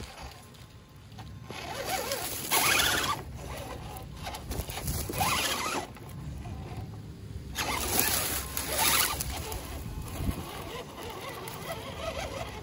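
RC rock crawler's Castle brushless motor and geared drivetrain whirring in several short throttle bursts with pauses between, as the crawler works over tree roots.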